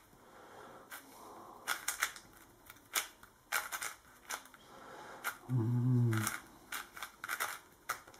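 YongJun MGC magnetic 4x4 speed cube being turned by hand during a solve: irregular plastic clacks as its layers are turned and snap into place, coming in quick runs with short pauses between.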